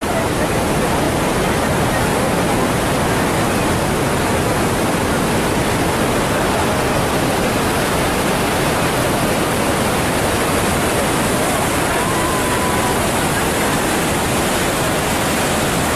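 Rushing water of a swollen river pouring over rocks at a waterfall: a loud, steady, even rush that starts abruptly.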